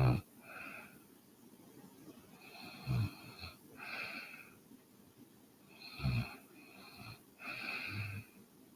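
A sleeping woman snoring: three short, low, rattling snores about three seconds apart, each followed by a longer, breathy breath.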